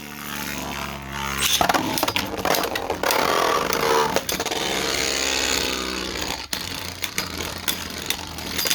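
Two Beyblade spinning tops, one a heavy 3D-printed top, whirring and scraping against each other and the stadium floor, with repeated sharp clashes as they collide.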